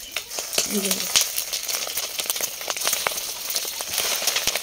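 A spiced fish-roe mixture with onion and green chilli sizzling and spattering in hot oil in a frying pan, a steady hiss with many sharp crackles.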